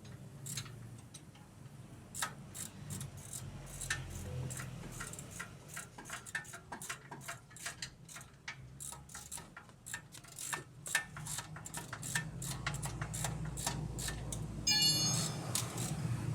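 Hand ratchet wrench clicking in quick irregular runs as bolts are worked under the van's suspension, with a ringing metal clink near the end.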